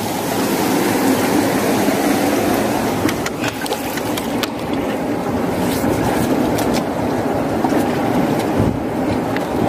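Steady rush of river water pouring through rapids into a rocky pool. Several brief knocks and rubs from the camera being handled fall in the middle.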